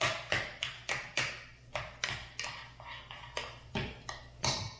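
Wire potato masher mashing boiled potatoes in a saucepan, knocking and clinking against the pot in a quick, uneven run of strokes, about three a second.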